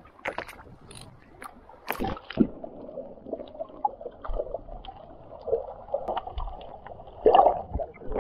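Muffled water sloshing and gurgling around a submerged camera's housing, scattered with short knocks and clicks. There is a louder burst of sloshing about seven seconds in.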